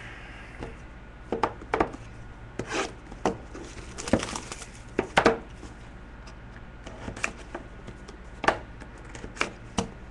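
A Leaf Valiant football card box and its cards being handled and opened on a tabletop: irregular sharp taps and clicks, a dozen or so, some louder than the rest.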